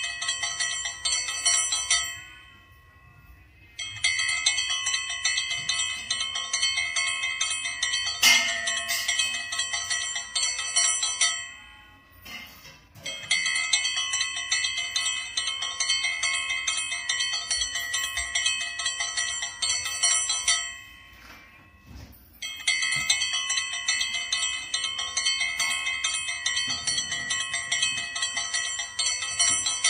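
Puja hand bell rung continuously in long bouts, with short pauses about two seconds in, about twelve seconds in and about twenty-one seconds in.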